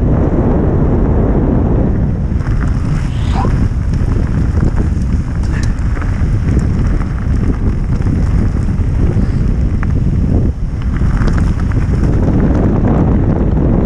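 Wind buffeting the microphone of a camera on a mountain bike riding fast downhill, over the rumble of tyres on a dirt and gravel track. Scattered sharp clicks and rattles come from the bike over the rough ground.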